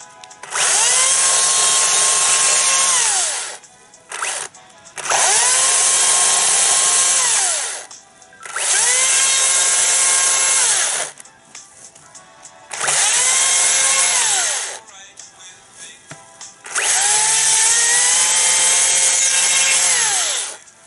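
Makita 36-volt battery chainsaw making five separate cuts of two to four seconds each: every time the electric motor whines up to speed, holds while the chain bites into the softwood, then winds down as the trigger is let go. The cuts go only partway into the log, so the pieces can be broken off.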